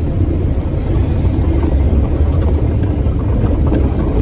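Steady low rumble of a car on the move, engine and road noise heard from inside the cabin.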